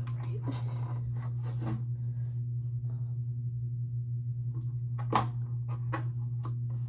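Light handling clicks and rustles as record-player parts are fitted, then one sharp knock about five seconds in, over a steady low hum.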